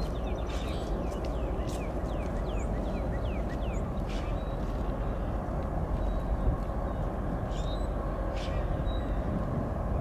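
Freight train rolling by with a steady, low rumble, while birds chirp above it in short, falling calls.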